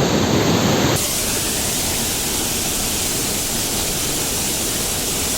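Small waterfall pouring off a rock ledge, a steady rush of water. About a second in, the sound changes abruptly to a slightly quieter, brighter rush.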